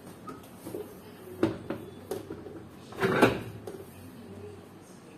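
A few scattered knocks and thumps over a low background, the loudest a short cluster about three seconds in.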